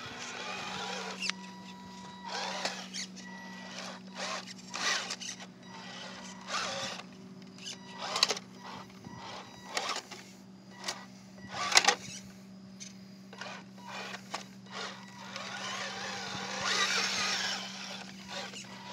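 Electric motor and gears of a 1/6-scale RC crawler truck whining as it crawls over rocks, with a steady hum and irregular clicks and knocks of the truck on stone. It gets louder and noisier for a couple of seconds near the end.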